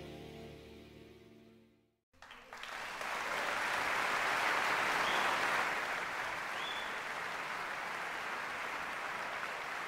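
Soft instrumental music with held notes fades out over about two seconds. After a brief silence, applause from an audience starts, swells and then holds steady.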